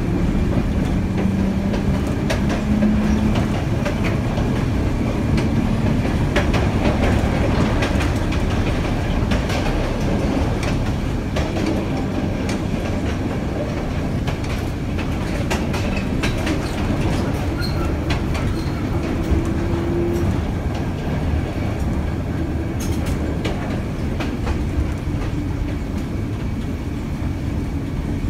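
Baltimore Transit air-electric PCC streetcar No. 7407 running along the track, heard from inside the operator's cab: a steady rumble of wheels and running gear, with scattered clicks as the wheels pass over rail joints.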